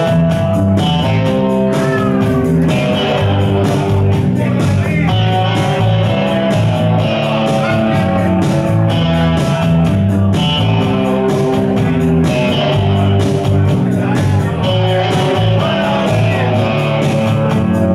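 Electric guitar and electric bass playing a rock tune together live, the guitar through a Vox amp, over a steady rhythmic pulse.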